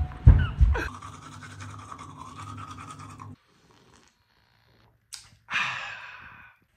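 A short loud shout, then teeth being brushed with a toothbrush: a steady scrubbing for about two seconds. After a pause, a brief sound and a breathy exhale that fades out near the end.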